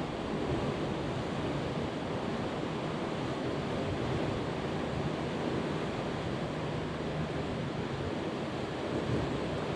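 Steady outdoor rush of wind and water, an even noise with no distinct events.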